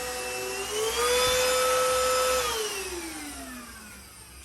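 Silvercrest cordless stick vacuum's motor running with a high whine that rises in pitch and gets louder about a second in, then is switched off and winds down, the whine sliding steadily lower to the end.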